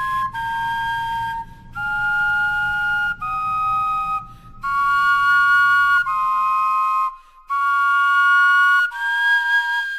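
Flute-like wind instruments made from vegetables play a slow two-part melody. It is a string of held, pure notes about a second each, with short breaks between them.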